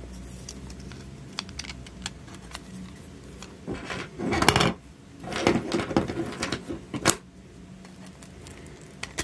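3D-printed plastic chassis parts being handled and fitted together: scattered light clicks, two longer stretches of clatter in the middle, and one sharp click about seven seconds in.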